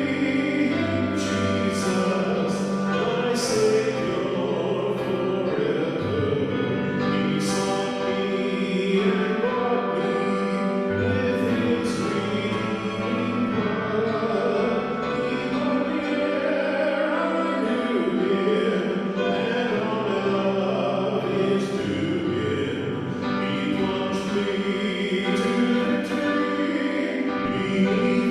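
Choir singing a piece of church music over a steady accompaniment, with long held chords and sustained low notes.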